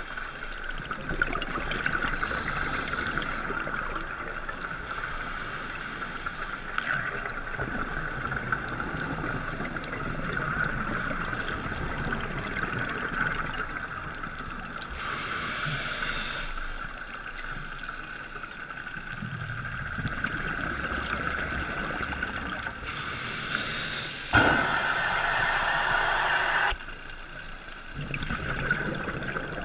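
Scuba regulator breathing heard underwater through the camera housing: a steady muffled hiss, broken three times by bursts of exhaled bubbles, the last and loudest near the end.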